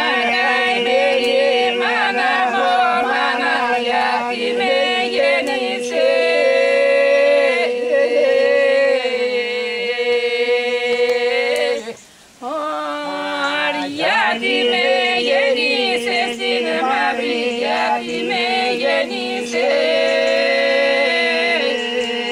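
Unaccompanied group singing by men and women: a wavering melody over a steady held drone note. The voices break off briefly about halfway through, then carry on.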